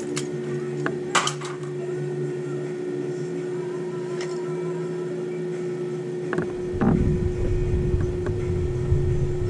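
Steady machine hum with a clear mid-pitched tone. There is a sharp click about a second in, and a rougher low rumbling noise joins from about six and a half seconds in.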